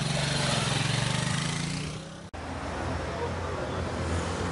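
Road vehicle engines running close by. One engine sound cuts off abruptly a little over two seconds in, and a lower engine hum follows, growing louder near the end.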